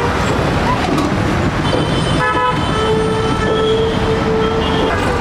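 Street traffic with vehicle horns honking: a short horn blast about two seconds in, then a long steady horn note through the second half, over a constant traffic din.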